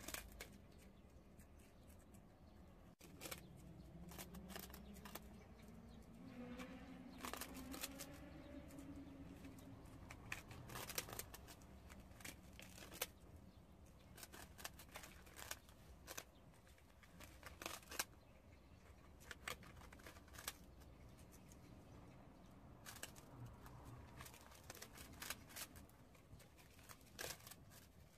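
Prairie dogs gnawing on puffed rice cakes: faint, irregular crisp crunches and snaps as bits of the dry cake break off.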